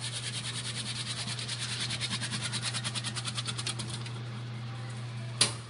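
Electric vegetable shredding machine (Taiwanese MG 865) running with a steady motor hum, its blades slicing vegetable into strips in a rapid, even rhythm of about ten cuts a second. The cutting stops about four seconds in while the motor keeps humming, and a single sharp knock comes near the end.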